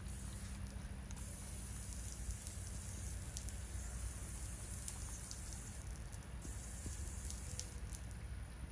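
Garden hose pistol-grip spray nozzle running a thin stream of water that splashes into a capuchin monkey's mouth as it drinks, with a few small clicks.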